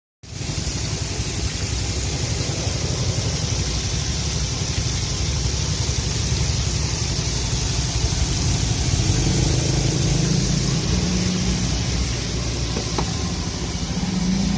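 An engine running steadily under an even hiss, with a low hum that grows stronger in the last few seconds.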